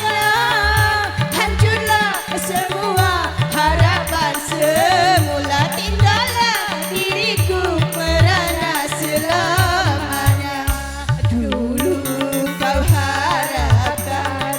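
Dangdut music: an ornamented, bending melody line over a steady kendang hand-drum and bass rhythm.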